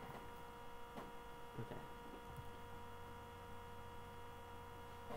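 Steady electrical hum with several pitched tones, a few faint clicks about one and two seconds in.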